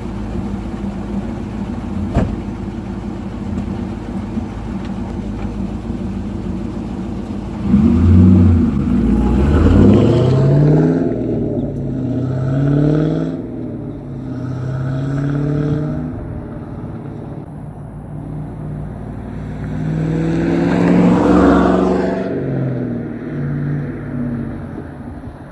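1998 Pontiac Trans Am WS6's LS1 V8, run without catalytic converters through a Flowmaster cat-back exhaust. It runs steadily at first, then from about eight seconds in it gets much louder and rises in pitch several times as it pulls through the gears at light throttle, around 2,000–2,500 rpm. It swells again about 21 seconds in, then fades near the end.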